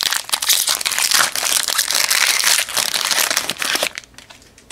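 Foil trading-card pack wrapper crinkling as it is torn open and the cards are pulled out. The crackling is dense and loud, then stops about four seconds in.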